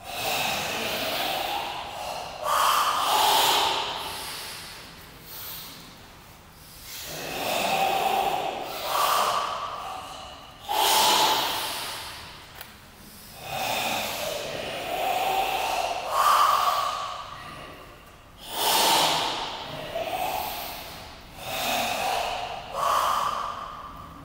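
Forceful kata breathing from several karateka performing a Goju-ryu breathing kata: a series of long, loud hissing breaths, each swelling and fading over one to three seconds.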